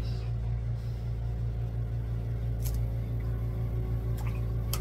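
A steady low drone, with two faint short clicks, one about two and a half seconds in and one near the end.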